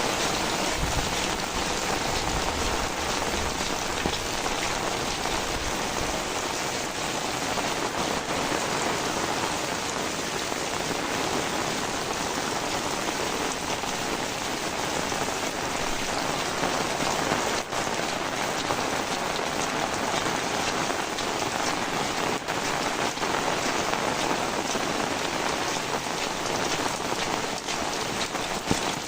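Heavy rain falling steadily, a dense even patter of drops on surfaces.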